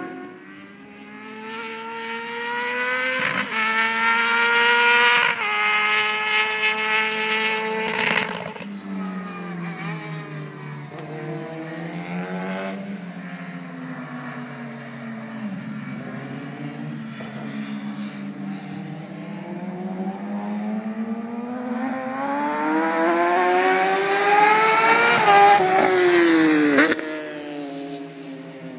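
Motorcycle engine revving hard around a circuit. It climbs in pitch and shifts up three times in the first eight seconds, runs at varying revs, then climbs to a high-pitched peak that breaks off sharply near the end.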